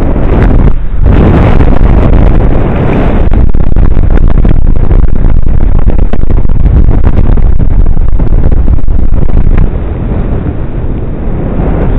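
Wind buffeting the microphone of a harness-mounted camera on a paraglider in flight: a loud, rumbling rush that eases a little about ten seconds in.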